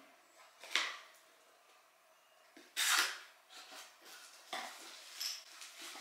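Shattered pieces rattling and clinking inside a product box as it is lifted and tilted: the item inside has broken in shipping. A short rattle about a second in, the loudest clatter about three seconds in, then several lighter clinks.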